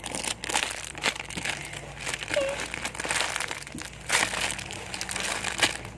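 Plastic wrapping crinkling irregularly as a mini ice cream squishy toy is handled and squeezed.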